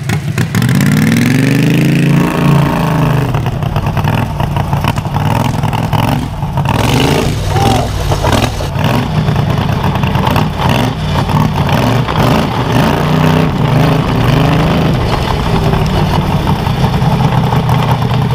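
Racing lawn mower's modified Predator 670cc V-twin engine under hard throttle. Its pitch climbs over the first two seconds as the mower pulls away, then rises and falls with the throttle through the rest of the run.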